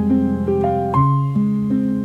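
Gentle, meditative instrumental music: a slow melody of single plucked or struck keyboard-like notes over sustained low chords, the harmony shifting about a second in.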